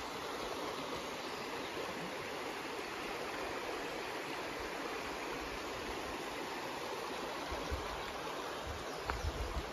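The River Cusher rushing over rocks: a steady rush of flowing water, with a few low thumps near the end.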